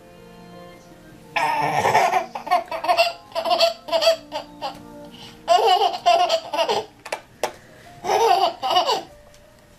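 A small child laughing and squealing in high-pitched bursts, four bouts in all, over quiet background music.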